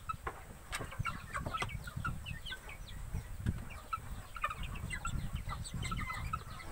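A small flock of young village chickens, about 50 days old, cheeping with many short, often falling chirps while they peck feed from a plastic tray, with scattered sharp pecking taps.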